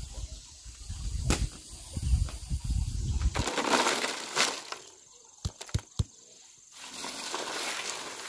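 A low rumble for about the first three seconds, then fresh red chilies poured from a plastic basket onto a woven bamboo tray: a brief rushing rattle, three light knocks, then a steady rustle as a hand spreads the chilies across the tray.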